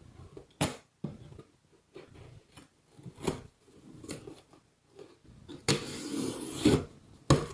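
Box cutter cutting and scraping along the packing tape and cardboard of a shipping box: scattered clicks and scrapes, a longer rasp of the blade drawn along the box about six seconds in, and a sharp knock just before the end.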